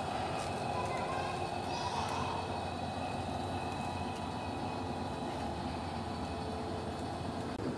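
Märklin gauge 1 V-100 model diesel locomotive and freight wagons rolling along a garden track: a steady hum of the motor and the wheels on the rails.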